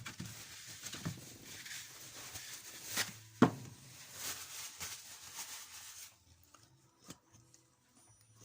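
Handling and rustling of workshop parts, with several sharp knocks, the loudest about three and a half seconds in; much quieter after about six seconds.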